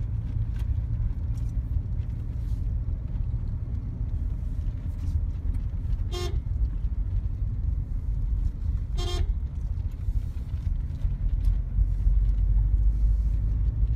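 Steady road and engine rumble inside a Toyota Innova's cabin on a dirt road, with two short car-horn toots about three seconds apart.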